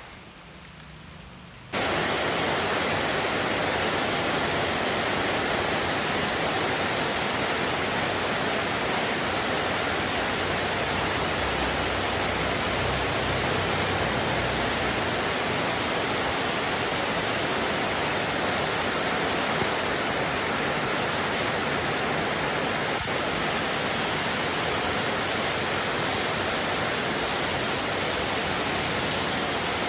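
Steady, dense rain hiss. It is quieter for the first two seconds, then jumps abruptly louder and holds steady.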